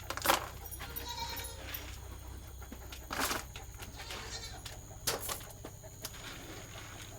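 Alpine dairy goats in a pen: one bleats faintly about a second in, among a few short knocks and rustles as the goats move about the feed.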